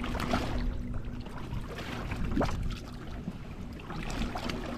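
A canoe being pulled and pushed through shallow, muddy marsh water: water sloshing and splashing against the hull, with a brief squeak about halfway through.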